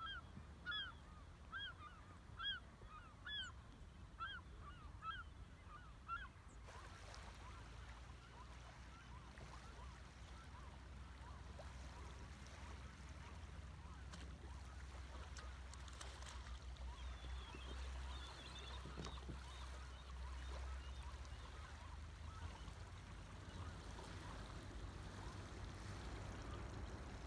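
A large flock of waterfowl flying over the water, calling over and over at about one call a second. After about six seconds the calls stop and only a steady low rumble and hiss remain, with a few faint bird calls in the middle.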